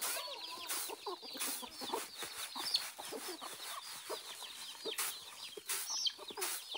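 Domestic chickens clucking, with a dense chatter of short, high peeping calls.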